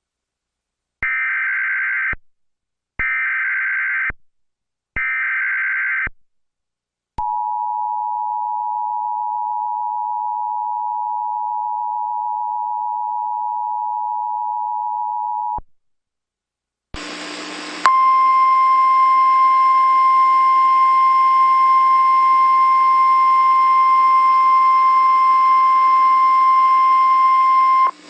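Emergency Alert System tones: three short bursts of SAME header data, about a second each, then the two-tone attention signal held for about eight seconds. After a short pause, a single steady warning tone comes in over radio static and holds for about ten seconds.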